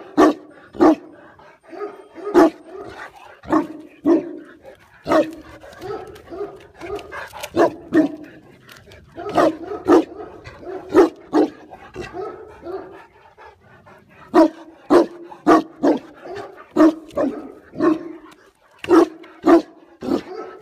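Tibetan mastiff (Do Khyi) barking over and over, about one to two barks a second, with a brief lull about two-thirds of the way through.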